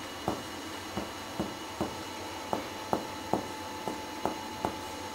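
Finger-to-finger percussion of the back of the chest: a finger tapping on a plexometer finger laid on the chest wall, about ten short taps mostly in groups of three. This is comparative percussion over the posterior lung fields, above, between and below the shoulder blades, where normal lung gives a resonant tone.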